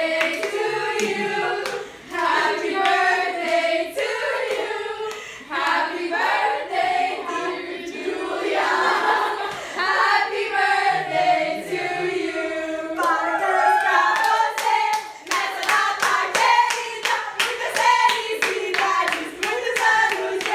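A group of people singing a birthday song together while clapping along in rhythm; about two-thirds of the way through the clapping becomes quicker and denser.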